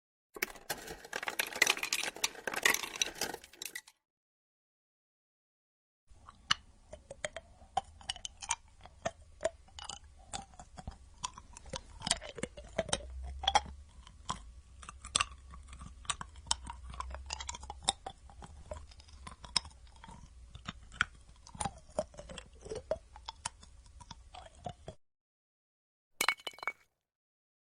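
Ice cubes clinking and rattling against a drinking glass as a drink is mixed, in separate takes split by silence. The first is a short dense flurry of clinks, the second a long run of scattered clinks with a faint low rumble under it, and a brief clatter comes near the end.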